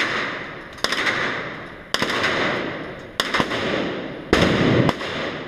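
Gunshots on an indoor shooting range: single shots roughly once a second, each with a long echo off the walls, then a quicker cluster of several shots about four seconds in.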